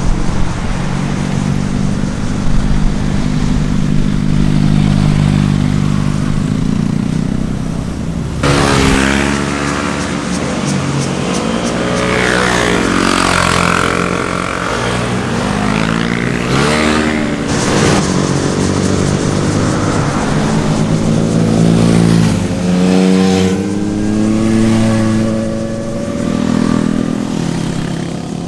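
Motorcycle engines and exhausts. A steady low engine note for the first eight seconds or so, then several sport bikes pass one after another, their engine notes rising and falling repeatedly with throttle and gear changes through the corner.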